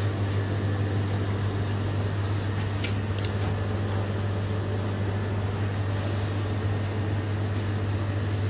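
A steady low machine hum with a faint hiss, unchanging throughout, and two faint light clicks about three seconds in.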